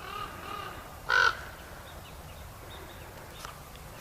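Crows cawing: a fainter, drawn-out caw in the first second, then one short, loud caw just after a second in.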